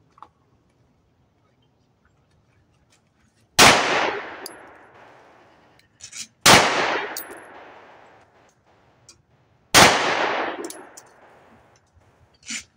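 Three shots from a Grand Power Q1s 9mm pistol, about three seconds apart, each ringing out in a long echo that fades over a second or two. A short, fainter sound follows near the end.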